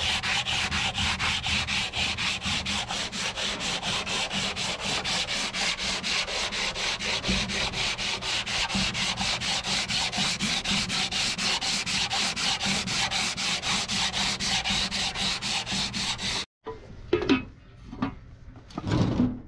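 Hand sanding block with sandpaper rubbed back and forth over body filler on a truck cab panel, in quick, even rasping strokes. It stops suddenly about three seconds before the end, followed by a few knocks and scrapes.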